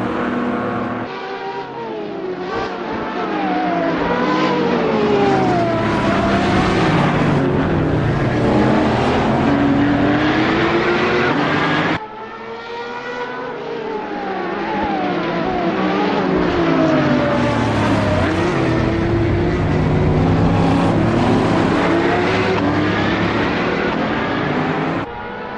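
Dubbed-in racing-car engine sound effect, the engine revving up and falling back repeatedly as if through gear changes. The sound cuts off abruptly and restarts about twelve seconds in and again near the end.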